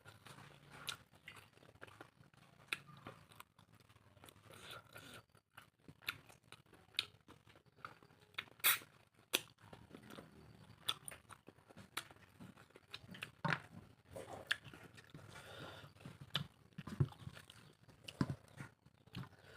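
A person chewing and biting pork close to the microphone: irregular mouth clicks and smacks, the loudest about nine seconds in.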